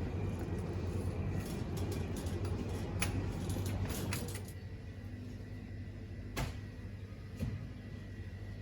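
A low, steady engine hum that drops away about four and a half seconds in, with a few clicks before it and two sharp knocks after it.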